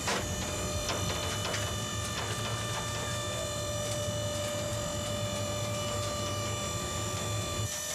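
Motorized overhead ladder rack on a fire engine swinging the ladders down from the roof: a steady motor hum and whine with a few scattered clicks, cutting off shortly before the end as the rack stops.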